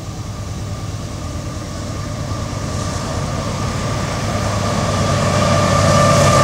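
Union Pacific GE diesel freight locomotives approaching. The low engine drone grows steadily louder, with a steady high whine over it.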